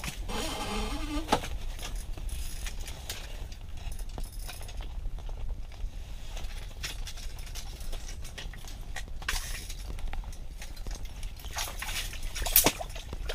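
Ice-fishing reel buzzing and clicking in uneven bursts as a big lake trout is fought up through the ice hole, the line being cranked in and pulled back off the reel.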